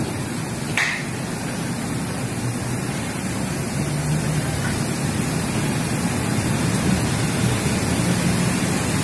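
Engine oil being poured from bottles through funnels into an engine's oil filler, heard as a steady rushing hiss.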